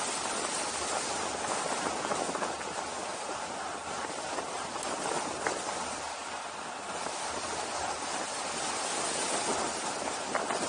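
Strong headwind rushing over the camera microphone during a fast descent, a steady rushing noise with no engine tone.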